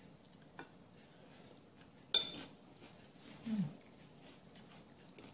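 A utensil clinks sharply once against a dish or plate about two seconds in, with a brief ring; a short low falling hum-like voice sound follows about a second later.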